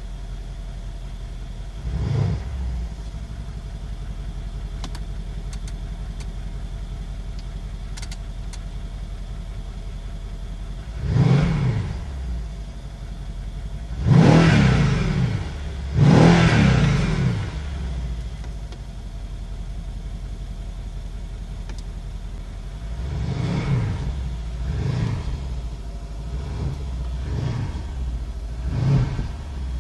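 Mercedes-Benz E 63 AMG S 4Matic's 5.5-litre biturbo V8 idling in Park and revved in bursts. There is a short blip about two seconds in, a longer rev around eleven seconds, and two big revs at about fourteen and sixteen seconds, which are the loudest. From about twenty-three seconds on comes a run of quick blips, heard from inside the cabin.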